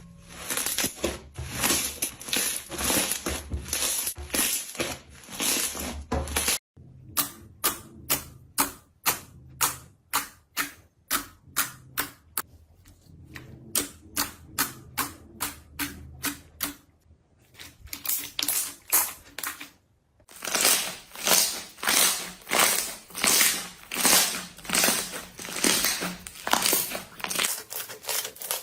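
Slime being squeezed and poked by hand, a rhythmic run of short sticky clicks and pops about two to three a second. It comes in three stretches with abrupt cuts about seven and twenty seconds in, the middle one with sharper, quicker clicks.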